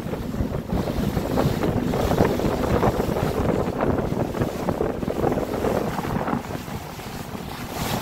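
Small pilot boat under way: wind buffeting the microphone over the low rumble of the boat's engine and water rushing along the hull.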